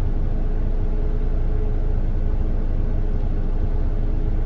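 Steady low rumble of a running car heard from inside the cabin, with a faint steady hum over it.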